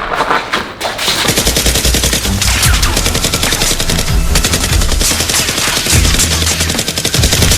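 Rapid automatic gunfire, a dense run of shots starting about a second in, over background music.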